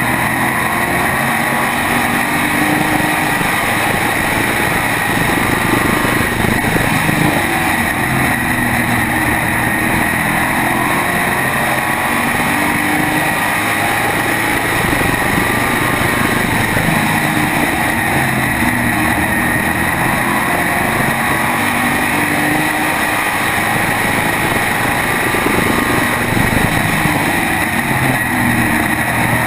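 SK modified race car's small-block V8 engine at racing speed, heard from on board, its note rising and falling as the car laps, with a steady high whine alongside.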